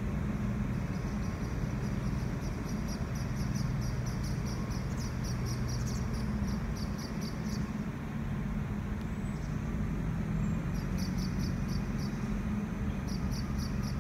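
Diesel engine of a Robel mobile maintenance train running steadily as the train moves slowly away, a low even hum. Small birds chirp over it in quick runs, for several seconds in the first half and twice more near the end.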